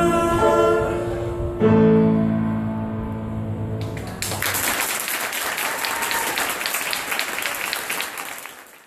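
A man's held final sung note over piano, cut off about a second and a half in by a loud closing piano chord that rings and decays. About four seconds in, the audience breaks into applause, which dies away at the end.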